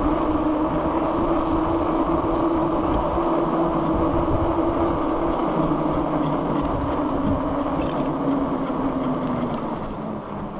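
Himiway Cruiser fat-tyre e-bike rolling along a wet road: a steady hum over rolling noise. The hum drops in pitch about nine seconds in as the bike slows.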